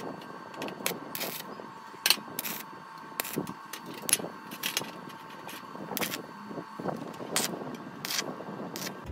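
Brief crackling arc strikes from a stick welder tack-welding square steel tubing, mixed with metallic clinks of the tubing against a steel welding table: about a dozen short, irregular sharp sounds over a steady tone underneath.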